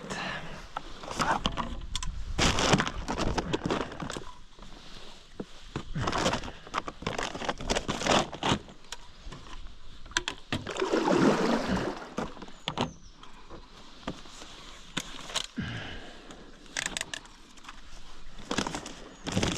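Twigs and branches rustling, scraping and snapping irregularly, with scattered sharp knocks, as a paddle board is pushed in among overhanging trees and brush.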